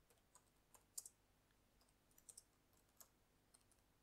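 Faint typing on a computer keyboard: a few irregular keystroke clicks as a name is typed in.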